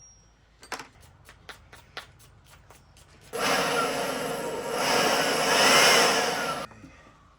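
Light ticks or clicks about four times a second, then a loud steady hiss from a pressurised nozzle for about three and a half seconds, with a faint tone that rises and falls, cut off abruptly.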